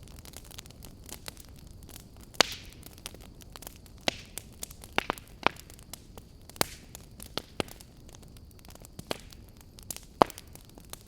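Fire crackling: irregular sharp pops and snaps over a low steady rush, with the loudest pops about two seconds in and again near the end.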